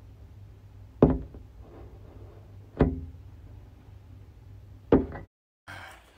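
Three sharp knocks about two seconds apart, each with a short low thud. The sound cuts out for a moment near the end.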